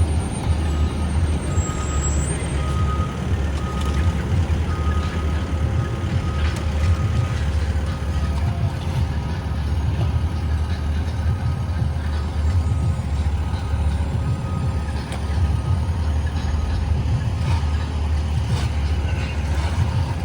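Diesel engines of heavy paving equipment running with a steady low rumble, while a back-up alarm beeps repeatedly, stopping about two thirds of the way through.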